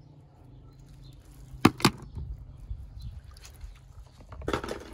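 Two sharp clicks from handling a small toy car, then water splashing near the end as the hand and toy plunge into a tub of water, over a low steady rumble.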